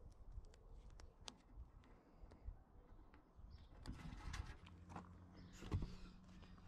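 Quiet handling sounds: small clicks and soft rustles as a strip of self-adhesive rubber seal is handled and pressed onto the edge of a painted locker door. The louder rustles come about four seconds in and again near the end, and a faint low hum sets in about halfway.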